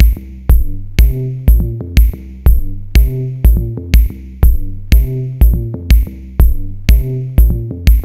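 Electronic background music with a steady drum-machine beat, about two kicks a second, over synth notes.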